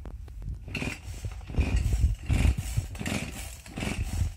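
Cedrus two-stroke chainsaw being pull-started over and over, the engine turning over in short repeated bursts on each tug of the starter cord without catching.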